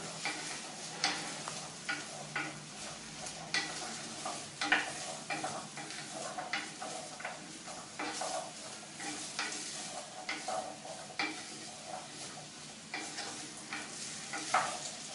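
Wooden spoon stirring diced potato, zucchini and carrot in a glazed clay pot, scraping irregularly over a steady sizzle of the vegetables sautéing in hot oil.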